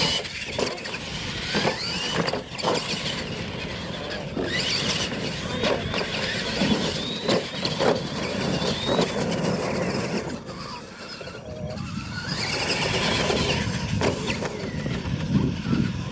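Radio-controlled monster trucks racing on a dirt track: their motors and gears whine, rising and falling as the drivers work the throttle, with scattered knocks and thumps as the trucks hit and land off the dirt jumps.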